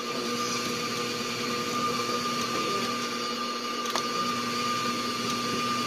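Electric kitchen mixer running steadily, beating butter in a bowl, with one sharp click about four seconds in.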